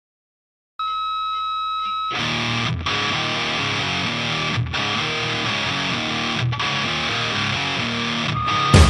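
Distorted electric guitar music. It starts about a second in with a single held note, then plays a repeating riff in phrases about two seconds long, and gets louder right at the end.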